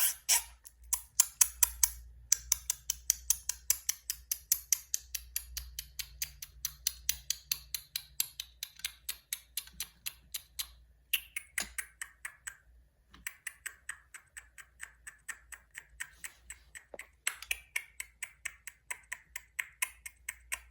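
Rapid, even mechanical clicking, about four or five clicks a second, broken by a few short pauses, over a faint low hum.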